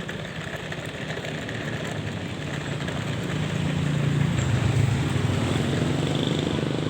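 Airliner engines running with a steady noisy rumble and low hum, growing louder a few seconds in and easing slightly near the end.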